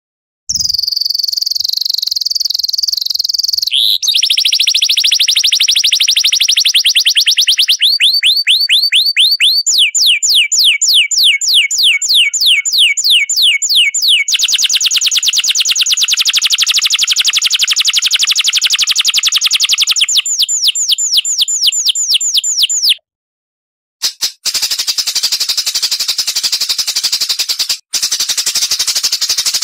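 Recorded songbird song: a high whistle, then long, very fast trills of rapidly repeated high sweeping notes that shift pitch and speed from section to section, then after a short break a high hissing, buzzy chatter.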